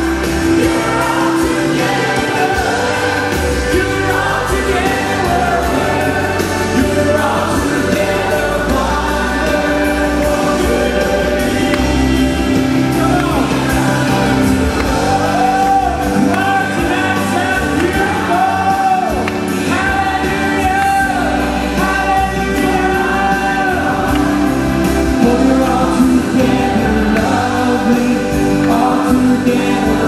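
Gospel worship music: a group of voices singing together over steady accompaniment, with long held and gliding sung notes.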